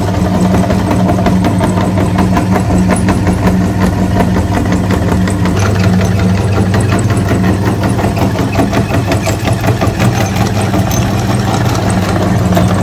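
A motor running steadily with an even low hum and a fine rattle.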